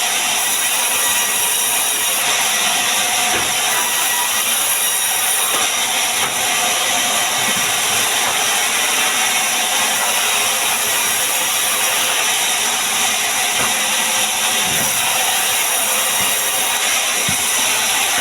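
Power tool working wood, running steadily at a loud, even level.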